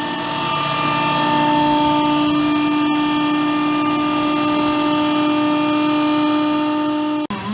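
Portable on-site machining rig for ship foundations running steadily, giving a constant multi-tone motor whine over a cutting hiss. It cuts off abruptly near the end.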